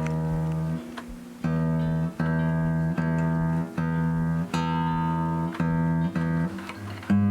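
Freshly strung acoustic guitar's low E string plucked again and again, about ten times, each note ringing briefly, as it is tuned up to pitch.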